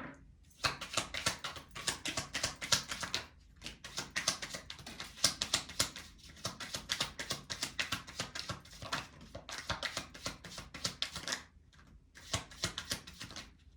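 A deck of oracle cards being shuffled by hand: a long, quick run of papery clicks and riffles that stops briefly near the end, then comes back in a shorter run.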